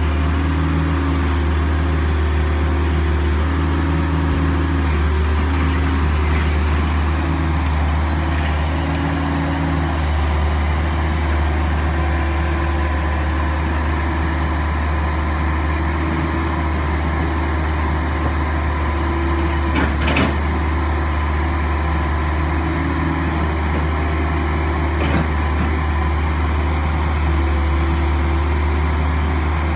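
Kobelco SK135SR excavator's diesel engine running steadily under load, its note shifting in steps as the hydraulics work the arm and bucket through broken concrete. Two sharp knocks, about twenty and twenty-five seconds in.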